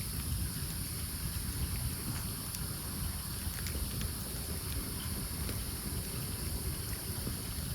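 Campfire burning, with a few faint scattered crackles over a steady low rumble and hiss.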